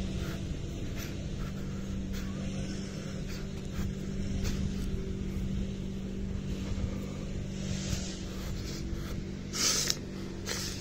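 Engine of a grass trimmer (brush cutter) running at a steady, high-pitched drone, with a brief louder rushing noise near the end.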